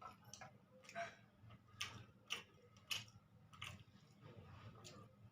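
Faint close-up eating sounds: soft chewing with irregular little mouth clicks and smacks, about one a second.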